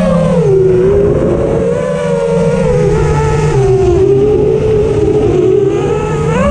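Home-built quadcopter's motors and propellers whining, heard close from the camera on its frame. The pitch dips and swells with the throttle and rises sharply near the end.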